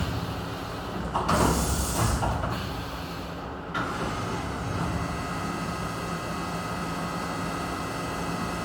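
Vertical machining center at work: a loud hiss starts about a second in and lasts over a second. It is followed by steady running with a high, even whine from the spindle.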